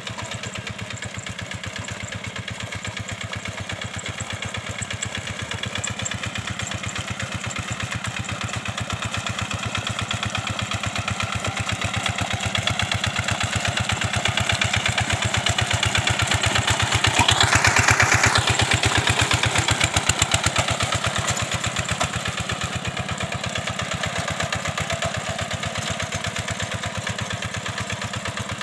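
Single-cylinder diesel engine of a two-wheel hand tractor with cage wheels, running with a steady rapid chugging while it plows a flooded rice paddy. It grows louder as it draws near and passes close about two-thirds of the way through, with a brief rush of noise, then eases off a little.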